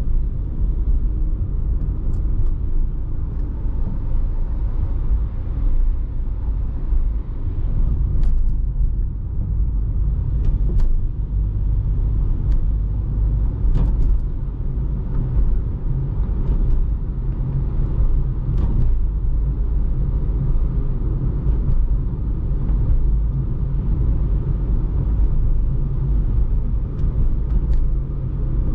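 Steady low rumble of a car driving along a city road: engine and tyre noise, with a few faint ticks.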